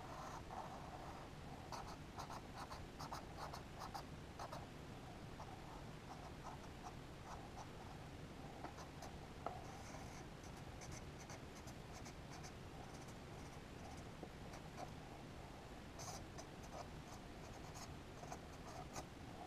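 Felt-tip marker drawing on a paper notepad: faint scratching of quick short strokes, in three spells with pauses between.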